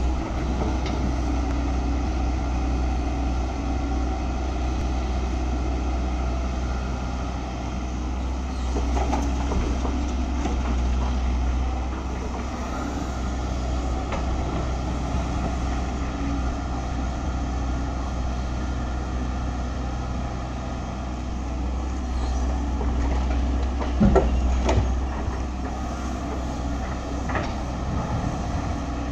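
Diesel engine of a LiuGong 915E hydraulic excavator running steadily under load as it digs earth, with a few sharp knocks from the bucket a few seconds before the end.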